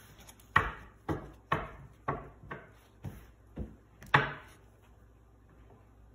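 A run of about eight sharp taps on the tabletop, roughly two a second, the first and the last the loudest.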